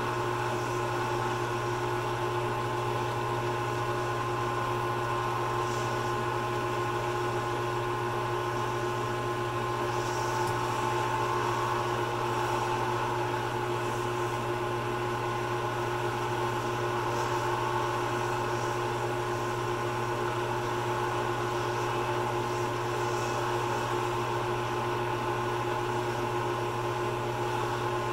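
Wood lathe running at a steady speed, a constant motor hum with a higher steady whine, as an acrylic pen blank on its mandrel is polished with a cloth.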